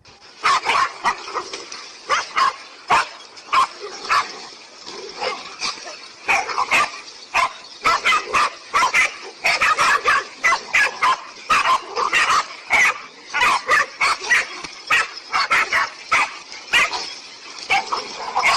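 Canine barking and yipping: a dense, continuous run of short, sharp calls, several a second.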